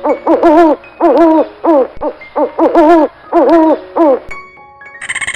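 An animal calling in a quick series of short hooting notes that rise and fall in pitch, stopping about four seconds in. A different, higher chirping sound starts just before the end.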